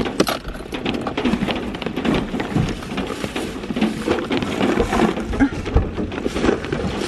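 Bags and belongings being loaded into a car's back seat: irregular rustling of fabric and plastic with knocks and bumps against the seats.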